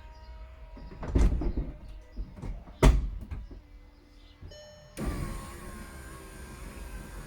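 VW Eos folding hardtop roof mechanism working through its opening cycle: two heavy clunks about one and three seconds in as the roof sections lock into place. Then, from about five seconds in, a steady electric whine of the roof's hydraulic pump and window motors.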